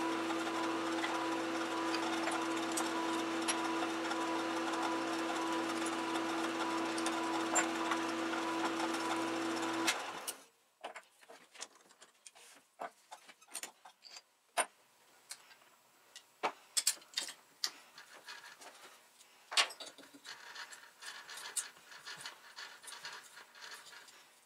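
Metal lathe running steadily while drilling a rod with a bit in the tailstock chuck, sped up four times. The machine stops abruptly about ten seconds in, followed by scattered clicks and knocks of metal tools and parts being handled.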